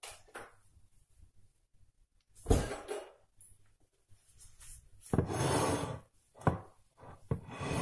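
Kitchen handling sounds: a sharp knock about two and a half seconds in, then a second or so of rustling and rubbing, a sharp click, and more rubbing near the end.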